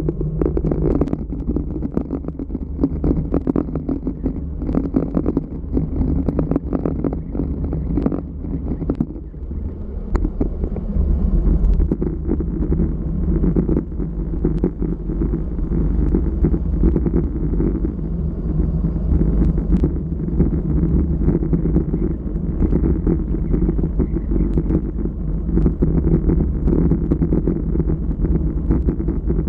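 Wind rushing over a GoPro's microphone on a bicycle descending at about 40 km/h, heard as a steady muffled rumble, with tyres on rough, cracked asphalt. Short knocks and rattles from road bumps come thickest in the first several seconds.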